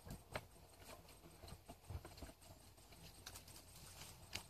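Near silence with a few faint, scattered clicks and taps.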